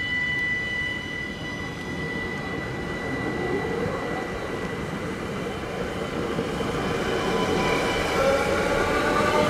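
Cityjet electric multiple unit running past, its rolling rumble under a steady high electric whine that fades out over the first half. Near the end a new whine rises in pitch as the level climbs.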